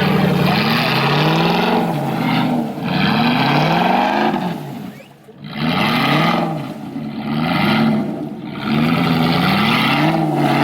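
Off-road 4x4 engine revving hard in repeated surges, its pitch rising and falling about every second and a half, with a brief drop about five seconds in.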